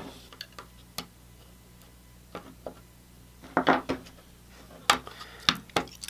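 Small clicks and knocks from handling a mini PC stick's circuit board and snapping its Wi-Fi/Bluetooth module back into place on a wooden bench. Light scattered clicks, then a cluster of louder knocks about three and a half seconds in and a few more near the end.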